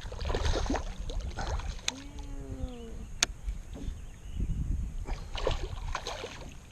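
Rumbling handling noise in a small jon boat with two sharp clicks, about two and three seconds in, and a short wordless falling hum about two seconds in.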